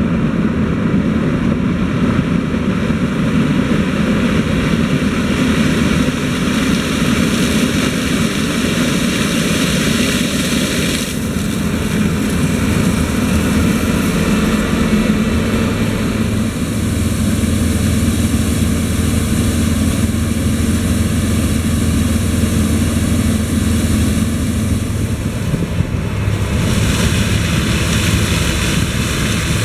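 New Holland CX 8050 combine harvester running steadily while harvesting corn, its engine and threshing machinery making a continuous mechanical noise. A deeper engine hum joins about halfway through.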